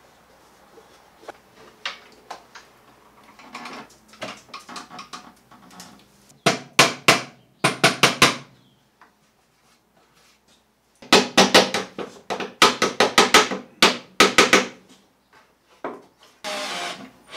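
A hammer knocking on plywood shelf parts in two runs of quick, sharp blows, the second run longer, with light clicks and taps of handling before them. Near the end there is a short, steady whirr.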